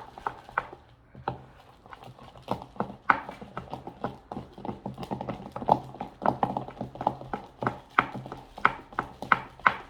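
Sticky homemade slime being squished and worked by hand, making irregular wet clicks and pops, a few a second.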